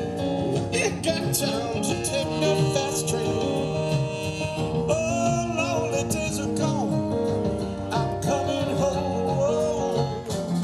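A band playing a song: a man singing over guitar.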